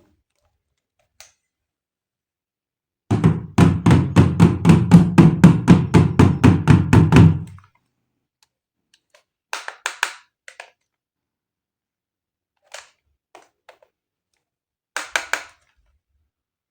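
A rapid run of about twenty knocks, about five a second, lasting some four seconds, followed by a few scattered clicks and taps.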